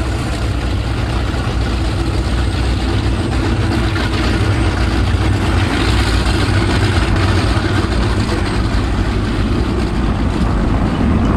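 Powerboat engines idling at low speed, a deep, steady engine sound that grows a little louder.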